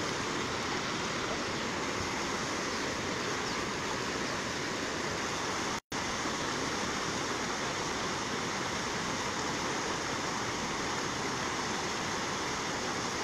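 Floodwater of a swollen river rushing past the bank: a steady, even rush of flowing water.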